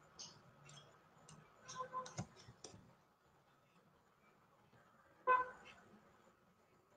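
Two short horn-like toots, a faint one about two seconds in and a louder one about five seconds in, with scattered faint clicks during the first three seconds.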